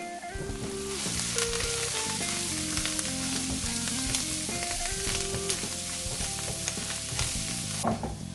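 Sliced onions, green chillies and spices frying in hot coconut oil in a pan, a steady sizzle with short scraping clicks from stirring; the sizzle swells about a second in and falls away near the end. Background music plays underneath.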